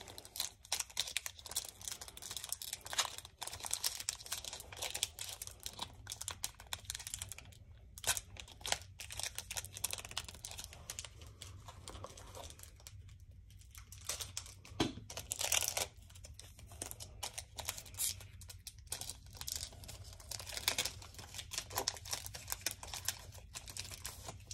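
Crinkling and tearing of hockey card pack wrappers being opened by hand, with the cards inside handled: a run of irregular crackles and rustles, with a short lull about halfway through.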